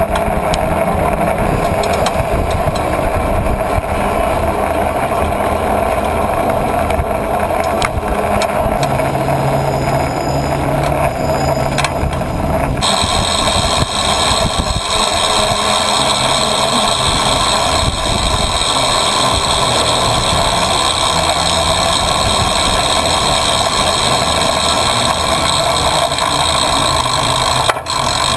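Riding noise picked up by a bicycle-mounted camera: a steady rumble of tyres and wind. About 13 seconds in it changes abruptly, and the hum of city traffic and engines comes in.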